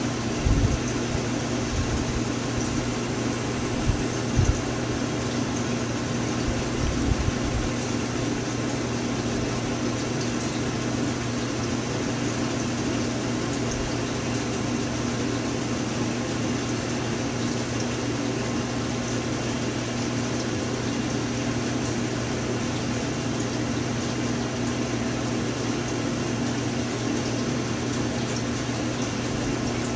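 Steady mechanical hum with a low drone and a hiss over it, like a fan or air-conditioning unit. A few dull low thumps come in the first several seconds.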